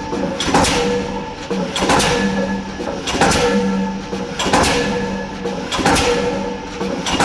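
K25 diesel pile hammer driving a concrete spun pile: a regular series of heavy blows, about one every second and a quarter, six in all, over a steady machine hum.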